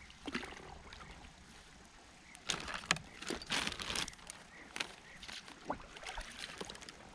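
Handling noise from a plastic fish measuring board and gear on a float tube: scattered clicks and knocks, with a busy cluster of clatter and scrapes about halfway through.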